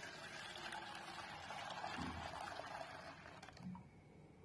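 Hot milk tea poured in a stream from a steel saucepan into a steel bowl to froth it: a steady splashing pour that stops a little after three seconds in, followed by a couple of faint knocks.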